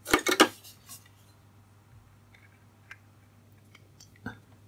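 A quick cluster of sharp metallic clicks from small hand tools working the wiring, then a few faint scattered ticks.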